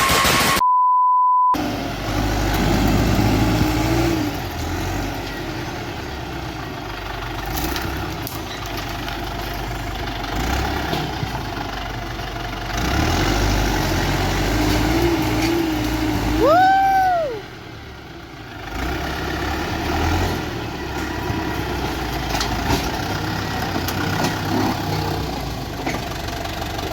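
Tractor engine running steadily under varying load as it works. The first second and a half holds a steady beep, and a short pitched tone rises and falls about 17 seconds in.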